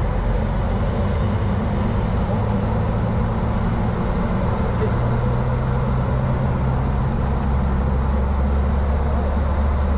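Cessna Aerobat's four-cylinder piston engine and propeller droning in the cabin, with rushing air noise, as airspeed builds quickly in the near-vertical descent out of a hammerhead. The engine's low tone shifts about halfway through and grows stronger near the end.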